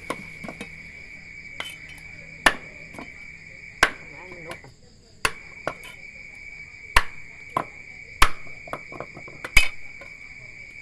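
Heavy knife strokes chopping a snake on a chopping block: sharp knocks every second or so, uneven in strength. Behind them, steady high-pitched insect chirring that stops for about half a second near the middle.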